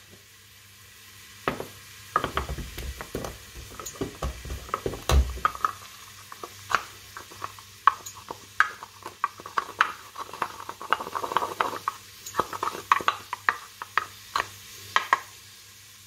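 A few mixed peppercorns being crushed with a wooden pestle in a wooden mortar: a run of sharp knocks and cracks, with heavier thuds in the first few seconds, then quicker grinding and tapping as the pepper breaks down.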